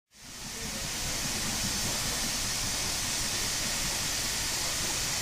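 Steady hiss of escaping steam over a low rumble from the LMS Stanier Black 5 steam locomotive, fading in at the start.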